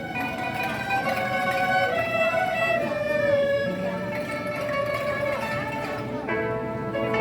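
Chinese traditional orchestra playing a held melody with some sliding notes; a fuller new phrase comes in about six seconds in.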